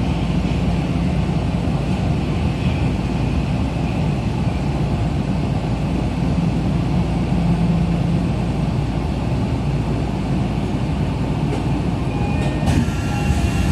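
Running noise of a Tokyo Metro Ginza Line 1000-series subway car heard inside the car: a steady rumble of wheels on rail with a wavering low hum. A few thin high tones come in near the end.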